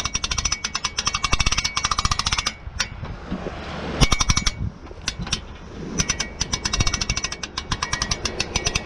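Hand-cranked boat trailer winch being wound in, its ratchet clicking rapidly and evenly. The clicking stops about two and a half seconds in, comes back briefly twice, and picks up steadily again about six seconds in.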